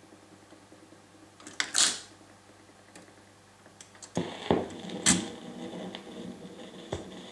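Philips AG4116 record player's automatic 45 rpm changer cycling at the end of a single, with a faint low hum under it. A sharp mechanical clack comes about two seconds in as the next record drops. About four seconds in the stylus lands and the lead-in groove crackles and clicks through the valve amplifier.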